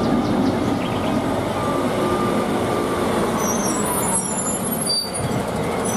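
MAN concrete mixer truck's engine running steadily as the truck moves along a street, with a few faint high chirps about four seconds in.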